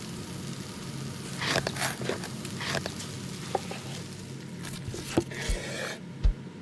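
Kitchen handling sounds: scattered scrapes and light clicks of utensils and cookware, with two dull low thumps near the end, over a steady low hum.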